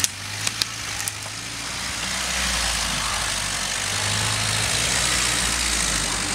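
A UAZ-452 van's engine running under load as the van drags a bundle of logs on a cable across the snow, the engine note growing a little louder about two seconds in.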